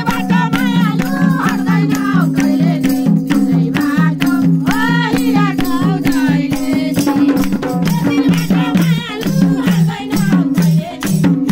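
Instrumental interlude of Nepali dohori folk music: madal hand drums play a quick, even beat over steady low sustained notes, while a wavering melody runs higher up.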